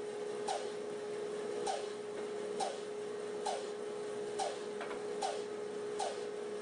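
Rikon bandsaw running: a steady motor hum with a regular tick about once a second.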